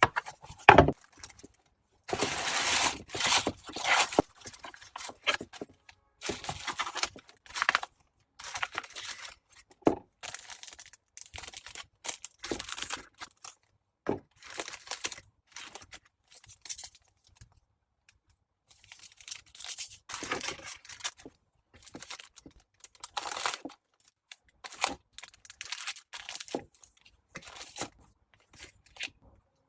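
Packaging being handled for parcel packing: material torn and crinkled in irregular bursts, with a longer tearing stretch about two to four seconds in and a sharp knock near the start.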